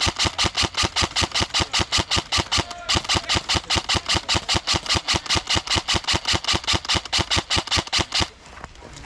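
Airsoft gun firing a rapid, even string of shots, about six a second, with a short break about three seconds in and stopping a little after eight seconds.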